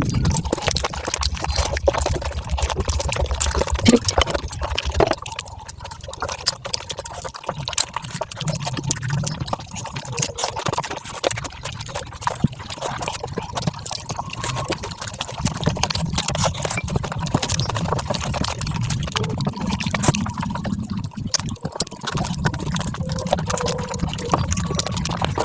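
Mukbang eating sounds sped up five times: a dense, unbroken rush of chewing and wet mouth clicks.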